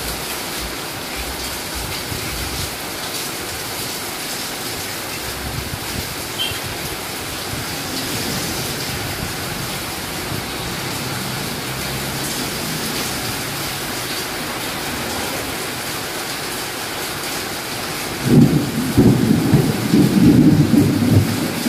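Steady rain falling on a wet street and puddles, an even hiss. About eighteen seconds in, a louder, uneven low noise sets in over it.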